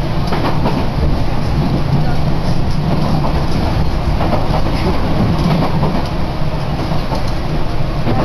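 Enshū Railway electric commuter train running between stations, heard from inside the carriage: a steady rumble of wheels on rail with occasional faint clicks.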